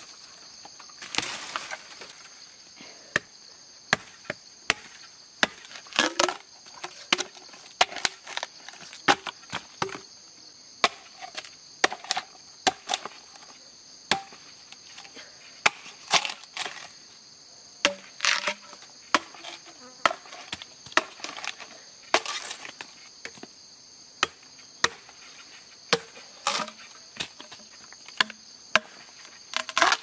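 Machete blows chopping and splitting a bamboo stem: many sharp, irregularly spaced strikes with a woody splintering crack. A steady high insect drone runs underneath.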